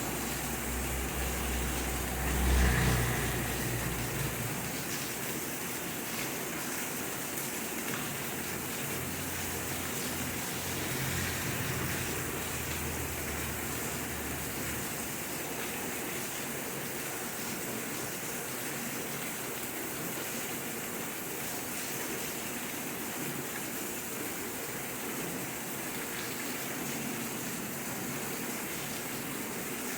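Steady heavy rain falling, an even hiss without a break. A low rumble swells and fades in the first few seconds, louder near three seconds in, and a weaker one comes and goes about ten to fourteen seconds in.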